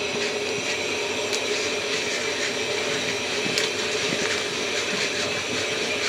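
Wooden paddle stirring popcorn kernels, oil and sugar in a kettle corn kettle, with a few light clicks and scrapes. Under it runs a steady drone with a constant hum, the loudest sound throughout.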